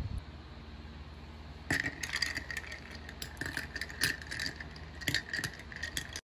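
Ice cubes clinking and rattling against a glass bottle as iced coffee is stirred with a straw. The rapid, ringing clinks start about two seconds in.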